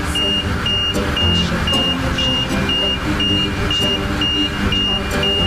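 Watertight door alarm on a cruise ship beeping steadily, a single high tone about twice a second, warning that the door is operating. Beneath it runs the dense low drone of engine-room machinery.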